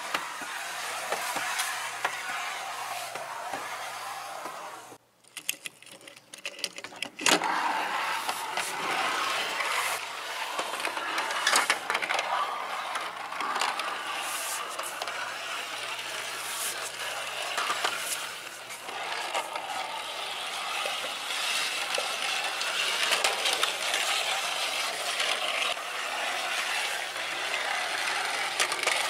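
The small plastic wheels of a toy bicycle and trailer roll and rattle across hard plastic play surfaces, with scattered clicks. The sound drops out briefly about five seconds in.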